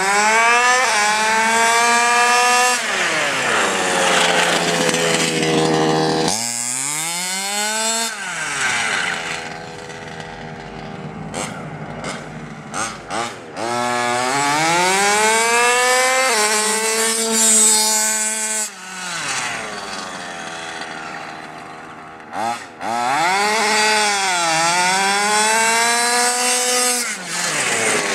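The 30.5 cc two-stroke engine of a 1/5-scale RC car revving hard as it drives. Four times the pitch climbs, holds high, then drops away. Between runs there is a quieter stretch with a few clicks.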